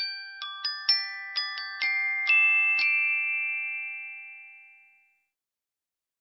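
A short logo jingle of bell-like struck notes, like a glockenspiel: about nine quick notes over three seconds, the last ones ringing on and fading away by about five seconds in.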